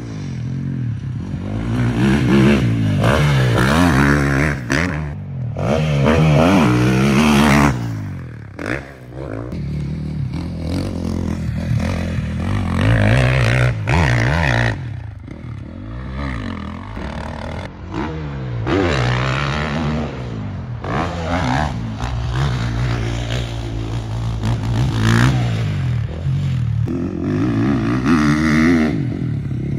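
Husqvarna motocross bike's engine being ridden hard around a dirt track, revving up and backing off over and over, its pitch rising and falling with each burst of throttle.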